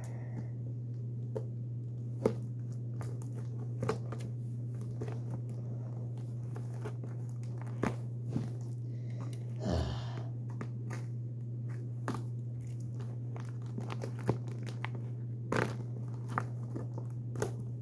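Plastic mailer packaging being cut open with scissors and unwrapped: scattered crinkles, rustles and small clicks, over a steady low hum.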